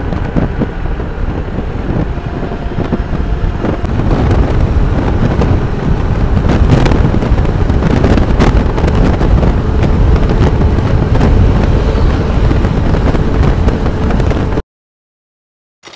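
Riding noise from an Aprilia SXR160 scooter at highway speed: wind rushing over the microphone with road and engine rumble underneath. It cuts off suddenly near the end.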